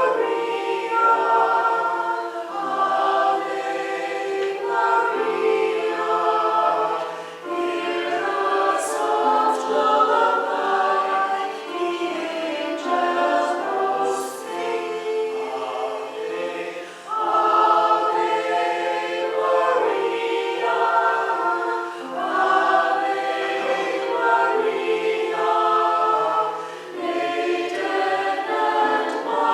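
Church choir singing a Christmas piece in phrases.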